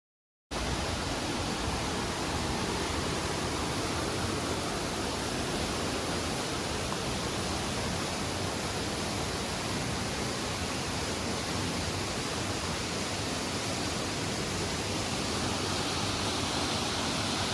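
Waterfall pouring, a steady, even rush of water that cuts in suddenly just after the start.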